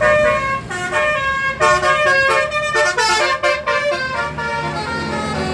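Indonesian bus telolet musical horn of the "basuri" type, playing a melody of short notes that step up and down in pitch. A low engine rumble runs underneath.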